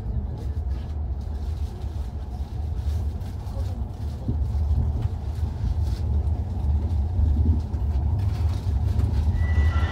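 Low rumble of a Hayabusa Shinkansen train pulling out of a station, heard from inside the cabin, growing louder about four seconds in as it picks up speed.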